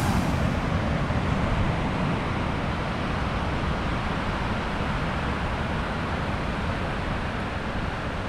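Steady rushing noise of wind and breaking ocean surf, with no distinct events.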